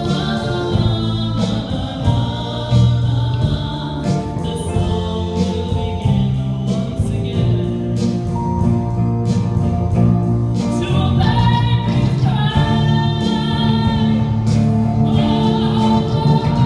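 Live band playing a slow song: a woman singing lead with other voices, over electric and acoustic guitars, bass and drums, the sung notes held long.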